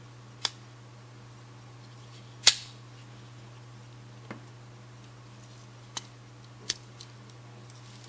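Stainless steel tools of a cheap 11-in-1 pocket multi-tool snapping shut and open against their back springs: six sharp metallic clicks, the loudest about two and a half seconds in.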